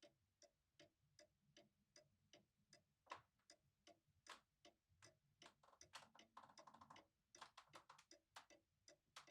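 Faint ticking of a clock, about two and a half even ticks a second, in a near-silent room, with a few louder clicks and a quick run of clicks about two-thirds of the way through.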